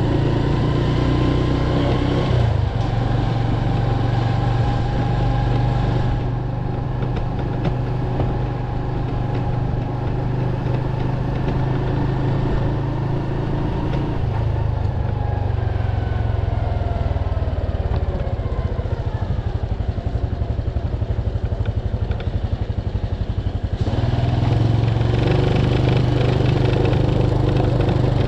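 Motorcycle engine running while riding. Its pitch falls as the bike slows through the middle, it runs low with a fine pulsing for a few seconds, and it gets louder again near the end as the bike pulls away.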